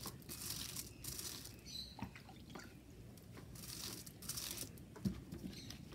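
Faint rubbing and crinkling of a damp sponge wiped over an aluminium-foil lithography plate, with a couple of light knocks.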